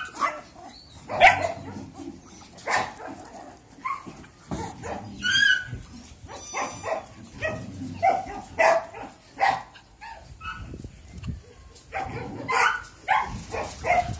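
Caucasian Shepherd Dog puppies yapping while they play-fight: a string of short yips and barks about every second, mixed with some higher whining, busiest near the end.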